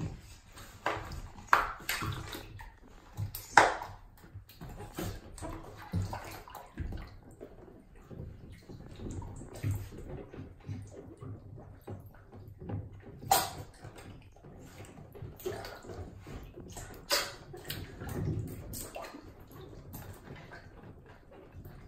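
An otter splashing and sloshing about in a plastic tub of water: irregular splashes and slaps of water, the sharpest about three and a half seconds in and again about thirteen seconds in.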